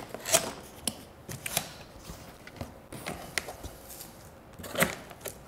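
Cardboard box being opened by hand: flaps scraping and rustling, with scattered taps and clicks and one louder knock near the end.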